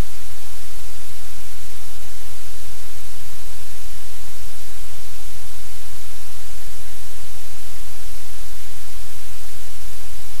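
Loud, steady static hiss with a low hum underneath, unchanging throughout: noise in the audio feed that covers any sound from the room.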